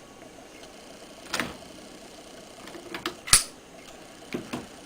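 A few short clicks and knocks of plastic and metal parts being handled on a quick-release battery terminal connector with jumper cable clamps. The loudest, sharpest click comes a little past three seconds in.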